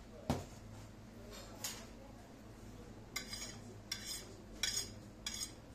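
A metal utensil scraping across a ceramic plate in four quick strokes about half a second to a second apart, each a short scratchy swish, as dots of sauce are dragged into swooshes. A single sharp knock comes just before, near the start.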